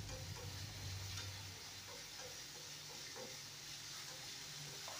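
Faint, irregular light clicks of a utensil stirring food in a frying pan, over a soft sizzle.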